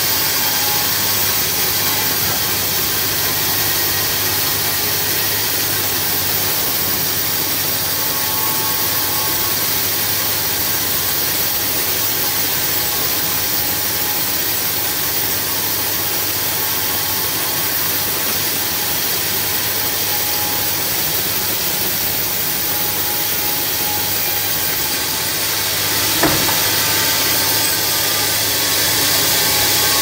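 Home-built band sawmill running, its blade cutting lengthwise through a log: a steady, loud mix of motor and drive hum with the hiss of the saw in the wood. One sharp knock near the end.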